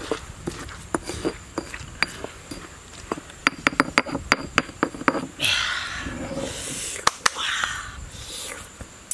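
Stone pestle pounding chili and garlic in a stone mortar, sharp knocks landing two to four times a second. About five seconds in, the pounding gives way to two longer stretches of hiss.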